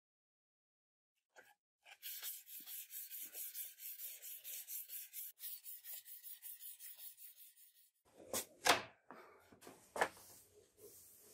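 Sandpaper (P400 grit) rubbed back and forth by hand along a steel knife blade, a regular rhythm of about three scratchy strokes a second starting about two seconds in. The sanding stops near the end and a few sharp knocks follow as the blade is handled and clamped on the wooden bench.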